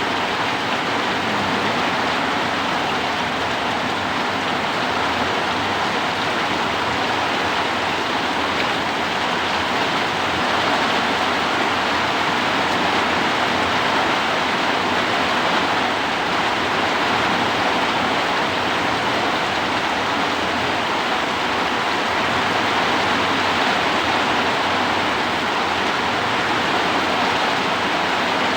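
Heavy rain falling steadily, with strong wind, in an even, unbroken rush of noise.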